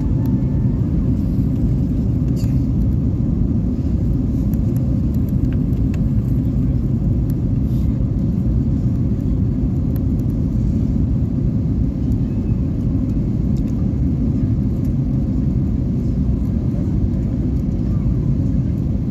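Steady rumble of jet airliner cabin noise during the descent on approach: engine and airflow noise, heaviest in the low range and unchanging.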